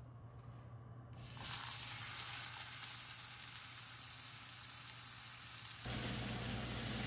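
Raw steak sizzling in a hot ridged grill pan: the hiss starts suddenly about a second in as the meat hits the pan and then runs steadily.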